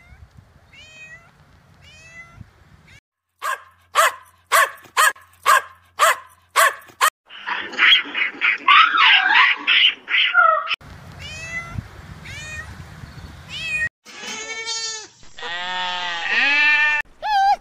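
A run of different animal calls played one after another. First come three short chirping calls, then a quick series of about eight sharp calls, then a long, dense yowling stretch, then more rising-and-falling pitched calls.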